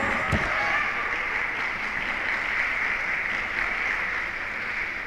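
Spectators in the hall applauding, an even patter that slowly dies down toward the end, with a single knock just after the start.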